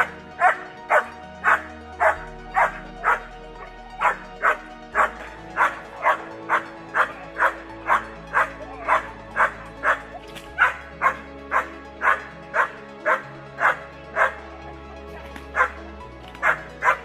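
German Shepherd barking steadily, about two barks a second: the guarding bark at the helper in protection training. Background music with low held notes plays underneath.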